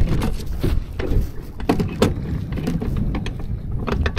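Electric trolling motor pushing a jon boat through shallow rocky water, with a low rumble and irregular knocks and clatter as the prop strikes rocks on the bottom, several hits a second.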